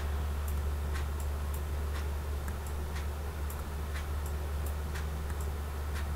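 Computer mouse button clicking in short, sharp, irregular clicks, roughly two a second, as points are selected and dragged. A steady low electrical hum runs underneath.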